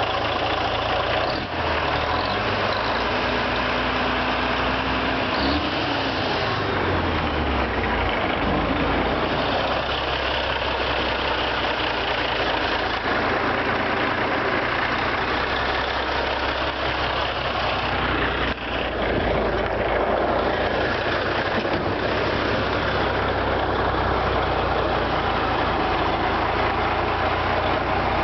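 1986 Mack R Model dump truck's diesel engine running steadily, its low note shifting briefly about five to eight seconds in.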